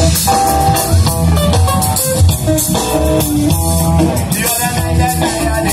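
Band music with guitar and drums playing continuously.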